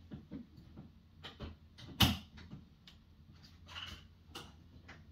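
Scattered clicks and knocks from the latches of a large hard-shell shipping case being worked open, with one sharp, loud clack about two seconds in and a short scrape a little before four seconds.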